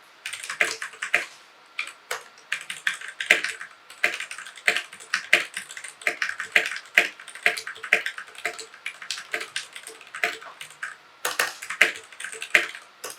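Steady typing on a mechanical keyboard: a quick, uneven run of sharp key clicks, several a second, with a brief pause near the end.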